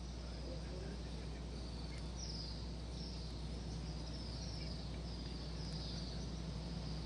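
Quiet open-air ambience with a steady low hum. From about two seconds in, short high chirps fall in pitch, repeating roughly every two-thirds of a second.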